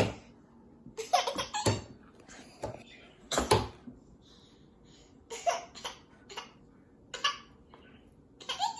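Baby laughing and giggling in a series of short bursts.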